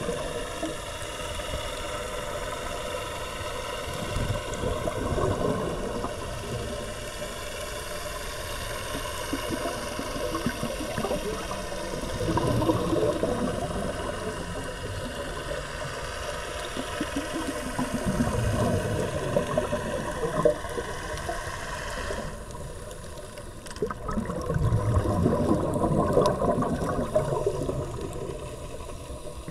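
Underwater sound from a scuba dive: divers breathing through their regulators, exhaled bubbles gurgling in louder low surges near the middle and toward the end. Under it runs a steady hum with high whining tones that cut off about three-quarters of the way through.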